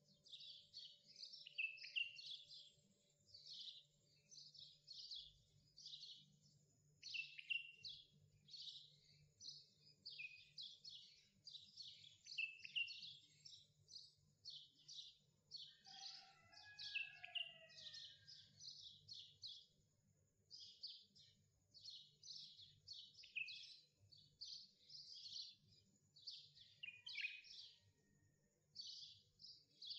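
Faint small-bird chirping: a continuous run of short, quick, falling chirps, several a second, with a lower sliding call about halfway through.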